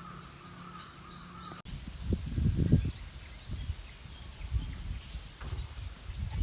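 Outdoor garden ambience: a faint steady hum with four short, evenly spaced high bird chirps, then, a little over a second and a half in, the sound changes abruptly to irregular low rumbling knocks on the microphone, with a few faint chirps above.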